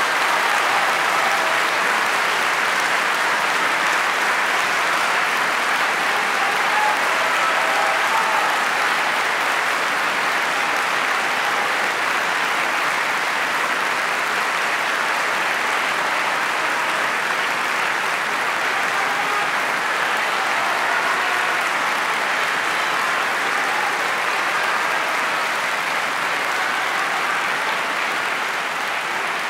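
Opera house audience applauding steadily, easing off slightly near the end.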